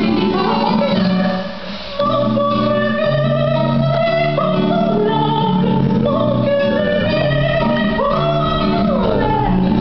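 A song playing: a singing voice over instrumental backing, with a short drop in loudness about a second and a half in.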